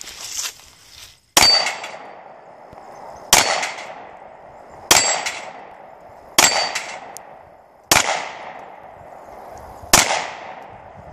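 Six handgun shots fired at steel targets, spaced about one and a half to two seconds apart. Each of the first four is followed by a brief high metallic ring from a struck steel plate.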